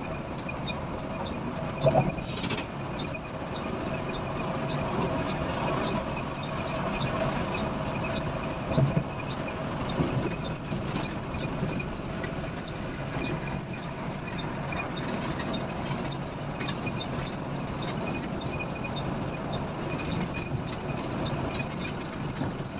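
Steady engine and road noise heard from inside a coach bus travelling at speed. A few short thumps stand out, the loudest about two seconds in and again around nine seconds.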